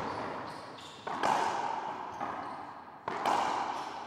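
Racquetball rally: the hard rubber ball cracking off racquets and the court's walls and floor, each sharp hit followed by a long echo in the enclosed court. The loudest hits come about a second in and about three seconds in, with lighter knocks between.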